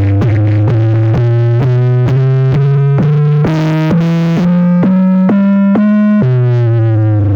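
Synthesizer music: a run of short bass-heavy notes at about two a second, each one a step higher in pitch, then a drop back to a single held low note near the end.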